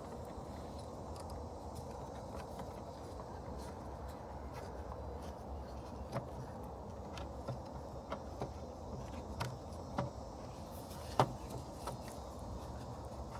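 Scattered light clicks and taps from handling small headlight parts, with one sharper click about eleven seconds in, over a steady low background hum.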